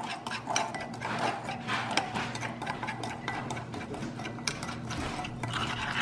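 Metal spoon stirring a thick paste of custard powder, sugar and milk in a glass bowl, with repeated scraping and clinking against the glass.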